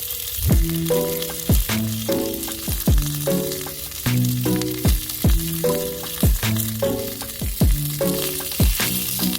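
Meat sizzling on a mini iron griddle, a steady hiss, under background music with a steady beat of about one low thump a second.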